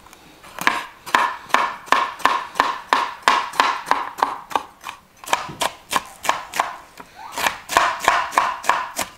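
Chef's knife slicing a red bell pepper into strips on a wooden cutting board, the blade knocking on the board in a steady rhythm of about two to three cuts a second, with a brief pause around the middle.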